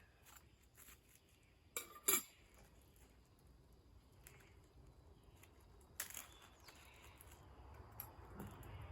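A few light clicks and clinks of small hard objects being handled: two close together about two seconds in, and another about six seconds in.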